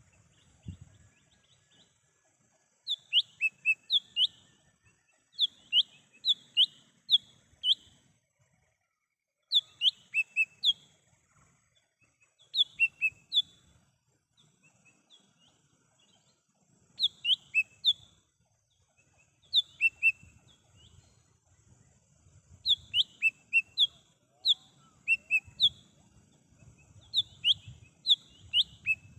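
Cucak hijau mini leafbird singing: repeated short phrases of four to six sharp, high downslurred notes, one phrase every two to three seconds with brief pauses between.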